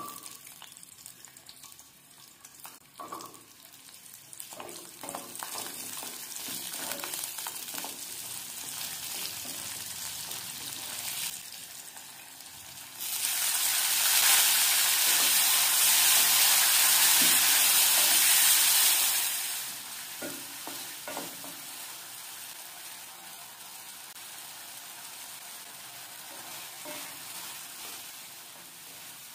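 Whole shallots frying in hot oil in a pan, sizzling, with the clicks of stirring. About 13 seconds in, chopped tomatoes go in and the sizzle turns much louder for about six seconds before settling back to a steady fry as the mixture is stirred with a wooden spatula.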